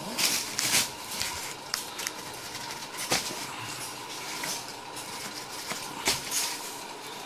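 Plastic bubble wrap crinkling and rustling as it is pulled aside, then a cardboard mouse pad box being handled, with a few sharp knocks and scrapes, the loudest about three seconds in and about six seconds in.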